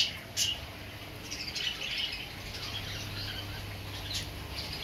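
Caged budgerigars chirping and chattering, many short calls overlapping, over a low steady hum.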